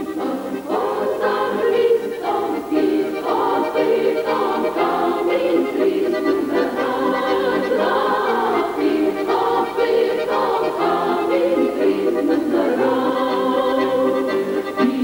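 Ukrainian folk choir singing in full voice, the women's voices to the fore, in long held phrases with brief breaths between them.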